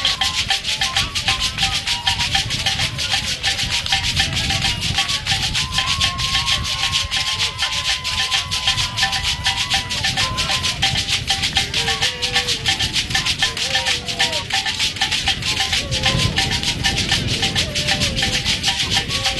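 Leg rattles shaken in a fast, continuous dance rhythm, a dense rattling hiss with no pause. A faint pitched melody wavers above it.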